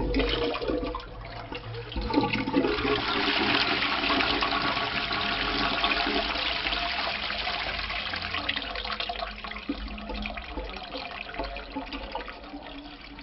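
Toilet with a wall-mounted lever flush being flushed: water rushes into the ceramic bowl, building about two seconds in and then slowly tapering off as the cistern empties.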